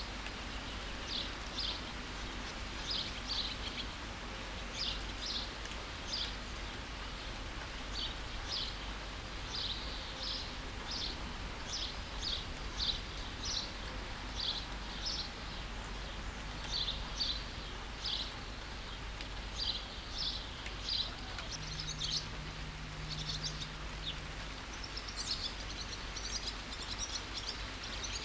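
Steady rain with a songbird repeating short, high chirps, often in pairs, about once a second; near the end the chirping grows busier.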